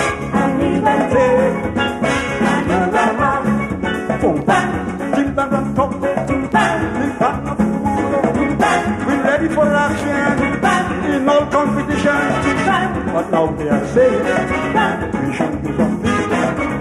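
Live calypso band playing an up-tempo instrumental passage with horns, backing singers joining in.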